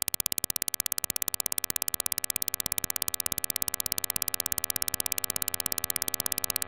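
A rapid, perfectly regular train of sharp electronic clicks, with a chord of steady sustained tones underneath that slowly grows louder.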